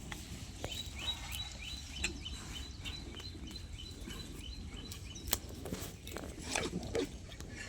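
A bird calling in a fast run of short high chirps, about three a second, over steady low background noise on a pig farm. There are a few sharp knocks, and some low pig grunts come near the end.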